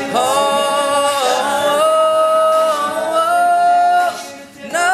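All-male a cappella group singing wordless held chords, the notes stepping up a few times. About four seconds in the voices drop away briefly, then come back with a quick upward swoop.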